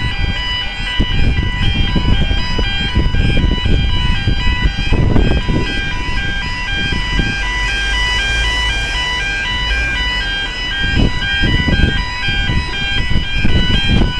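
Level crossing audible warning alarm sounding a steady alternating two-tone warble, with wind buffeting the microphone.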